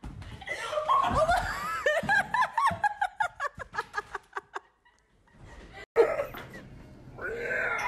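A person laughing hard in a long run of short bursts that come faster and faster, then break off just before five seconds in. After a sharp click about six seconds in, a different voice starts.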